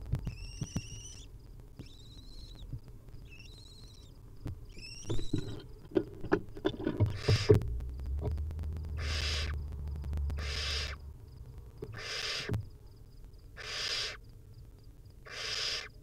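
Barn owls in a nest box: several short, high, twittering calls with scratches and knocks of movement on the nest floor. Then a barn owl nestling's begging snore, a rasping hiss repeated about every second and a half.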